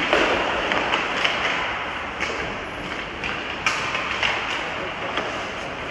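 Ice hockey play in a rink: a steady scrape of skate blades on ice under scattered sharp clacks of sticks and puck, about a dozen in all, echoing in the hall.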